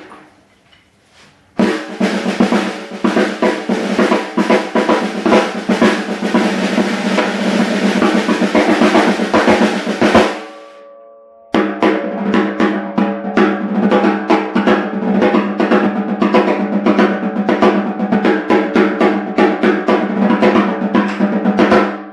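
14-inch by 6.5-inch beech snare drum played with wooden sticks in rapid, dense strokes. The first passage starts about a second and a half in and stops about ten seconds in, the drum ringing out briefly. A second passage starts about a second later and runs until just before the end.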